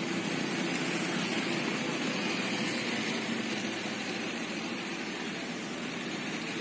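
Heavy road-construction machinery running steadily: a constant engine rumble with a hissing haze above it, with no changes or knocks.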